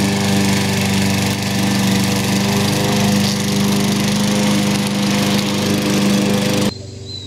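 Walk-behind gasoline lawn mower engine running steadily at an even pitch while the mower is pushed across grass. It stops abruptly near the end.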